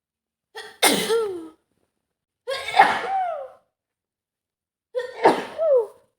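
A woman with a cold sneezing three times in a row, about two seconds apart. Each sneeze is a short catching in-breath, then a loud burst that trails off in a falling voiced tail.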